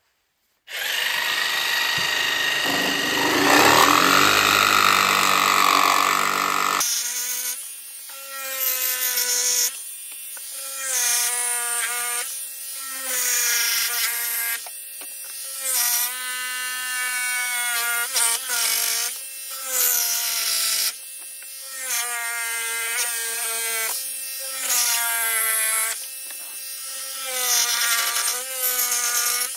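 Makita jigsaw sawing the corners off small scrap-wood blocks to form roof peaks. It runs as one continuous cut for the first several seconds, then in short runs that start and stop every second or two, its motor whine rising briefly at each start.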